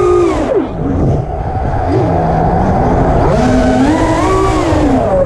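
Electric motors and propellers of a 180 mm FPV quadcopter whining over wind rush, heard from its onboard camera. The whine drops sharply about half a second in as the motors spin down, stays low and uneven, then climbs again a little after three seconds as the throttle comes back up.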